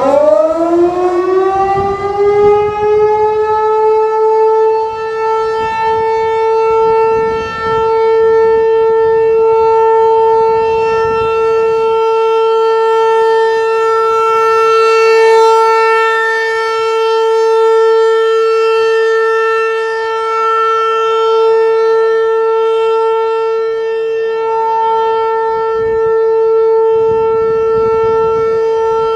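Federal Signal 508-128 outdoor warning siren sounding a full alert: it winds up with a rising pitch over the first few seconds, then holds one steady tone whose loudness gently swells and fades.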